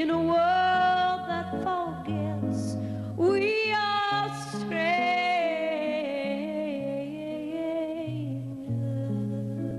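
A woman singing long, held notes that waver with vibrato and glide between pitches, accompanied by an archtop jazz guitar.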